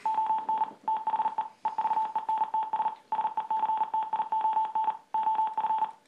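Morse code sent from a laptop and played through a small speaker: a single steady beep keyed on and off in rapid dots and dashes, with a few brief pauses between words.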